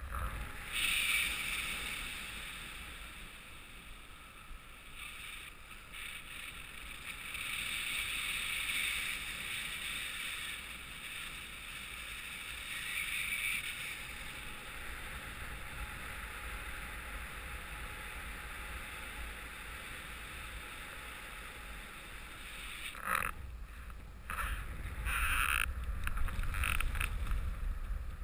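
Rushing airflow over the camera microphone of a paraglider in flight: a steady windy hiss that swells and fades every few seconds, with a few sharp buffets and a stronger low rumble near the end.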